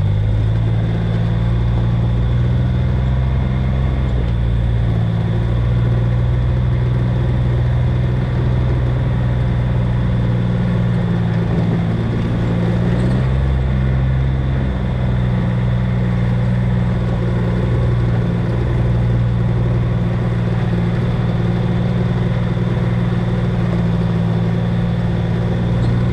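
A vehicle engine running steadily at low speed, its pitch shifting a little every few seconds.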